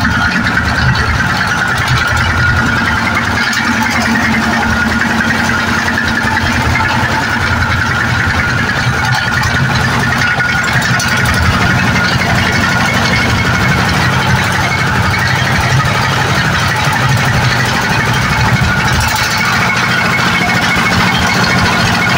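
Changchai diesel engine running steadily on a test run after its governor was repaired, where the governor's balls had jammed and fallen out and kept it from taking fuel.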